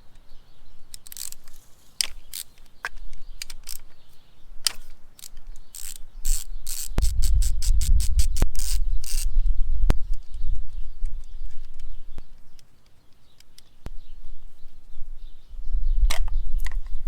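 Ratchet and socket clicking as the oil filter cover bolts are worked, with a fast run of clicks around the middle. Scattered clicks and knocks of metal parts being handled, and a low rumble in the middle and again near the end.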